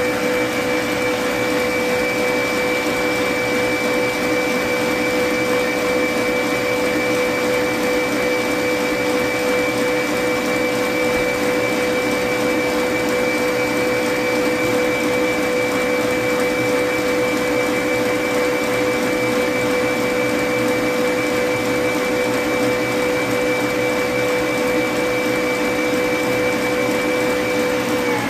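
Electric stand mixer motor running at high speed, a steady whine over a whirring hiss, its wire whisk whipping egg whites for meringue in a stainless steel bowl.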